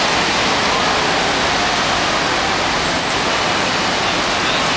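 Steady rushing noise of busy road traffic, even and unbroken, with no single vehicle standing out.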